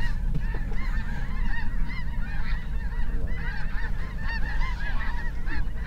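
A large flock of snow geese calling, many short high yelps overlapping without a break, over a steady low rumble.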